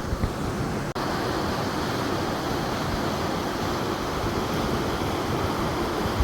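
Flash floodwater rushing down a rainforest trail: a steady, even rush of fast-flowing water, with a brief dropout about a second in.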